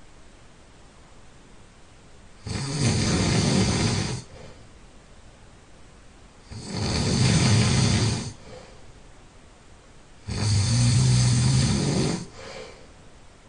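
A person snoring while ill: three loud snores, about four seconds apart, each lasting just under two seconds, with quiet breaths in between.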